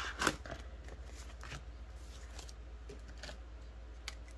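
Clear plastic envelopes in a ring binder rustling and clicking as they are handled: a series of short crinkles and clicks, the loudest right at the start, then a few more scattered through.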